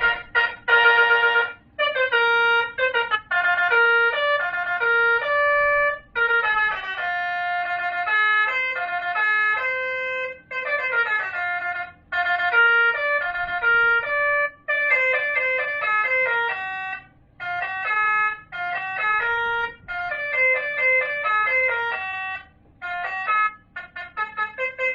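Basuri telolet horn module, a 60-watt electronic horn, playing a run of short horn melodies: stepping, held notes with fast repeated notes and quick descending runs, phrases broken by brief gaps.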